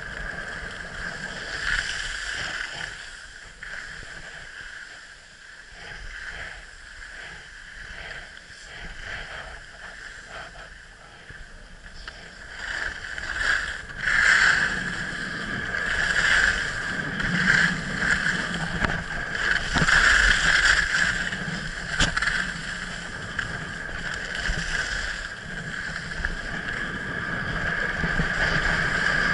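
Skis hissing and scraping over groomed snow during a downhill run, with wind rushing over the microphone; the sound swells again and again through the second half as the skier turns.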